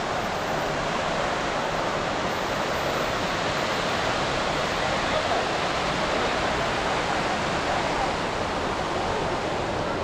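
Steady rushing wash of ocean surf on a beach, with faint voices of people in the background.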